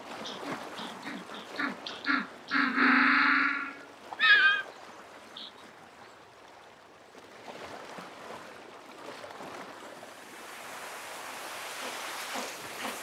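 African (jackass) penguin giving its donkey-like braying call: a quick series of short notes, then one long drawn-out loud note and a short wavering one about four seconds in. Then comes a rushing hiss that swells toward the end, where the short notes start again.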